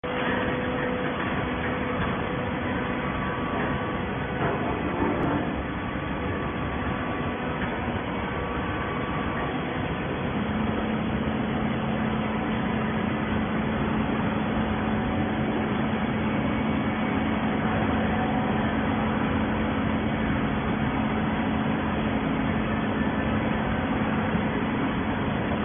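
Industrial horizontal hydraulic baler running: a steady mechanical drone, joined about ten seconds in by a steady low hum.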